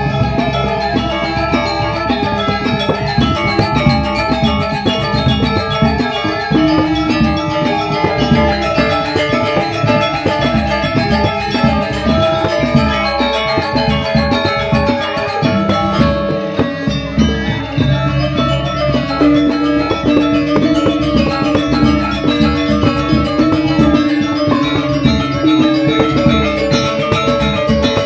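Balinese gamelan playing: bronze metallophones ringing in fast interlocking patterns over the strokes of a kendang, a two-headed barrel drum beaten with a stick, heard from close beside the drum. The ensemble thins briefly a little past the middle, then picks up again.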